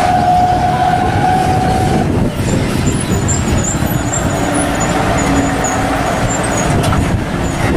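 A heavy truck running loudly and steadily, with a held whining tone in the first two seconds.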